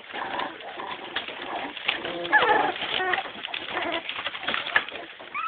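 Three-week-old pit bull puppies play-fighting, giving short, soft whimpering and cooing squeaks, several of them gliding in pitch.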